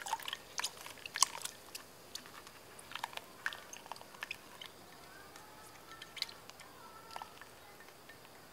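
Silicone spatula scraping a foamy yeast mixture out of a ceramic ramekin into a glass bowl of liquid: irregular small wet clicks, taps and splats, most of them in the first four seconds.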